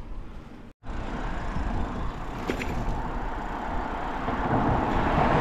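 Road traffic noise with wind rumbling on the microphone, heard from a bicycle on a busy road, the sound of a passing vehicle building toward the end. The sound drops out completely for a moment just under a second in.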